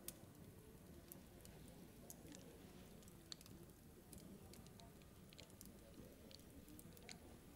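Near silence: a faint low hum with scattered soft clicks and crackles.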